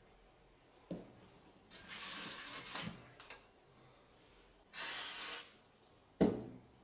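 An aerosol can spraying onto freshly super-glued wooden parts: a softer hiss of about a second, then a louder hiss of about a second, with a light wooden knock before them and a sharper knock after as a piece is set down.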